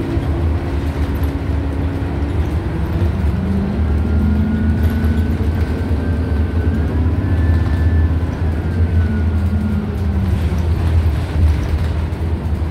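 Interior of a 2013 New Flyer XDE40 diesel-electric hybrid bus (Cummins ISL9 engine, Allison EP40 hybrid drive) under way: a steady low drivetrain and road rumble, with a faint whine that rises and then falls in the middle.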